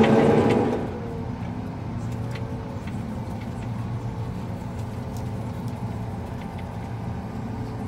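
Steady machine drone of a John Deere 9600i self-propelled forage harvester chopping corn, heard from inside the cab. It is louder for about the first second, then settles to an even hum with a few faint clicks.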